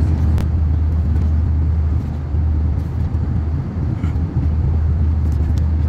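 Steady low rumble of cabin noise aboard an Airbus A321 with IAE V2500 engines in flight. A magazine page is turned near the start.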